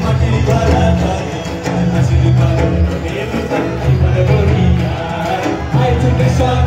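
Live Bengali folk band music played over a hall's PA, with a strong beat in the low end under a melody line.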